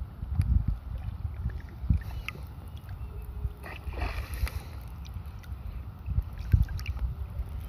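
Shallow seawater lapping and sloshing, with irregular gusts of wind rumbling on the microphone and a brief splash about four seconds in.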